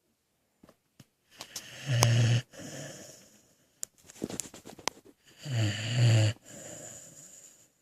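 A sleeping dog snoring: two loud snores about three and a half seconds apart, each followed by a quieter, longer breath.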